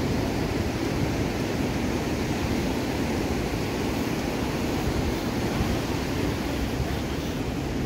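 Ocean surf breaking and washing up a sandy beach: a steady, unbroken rush.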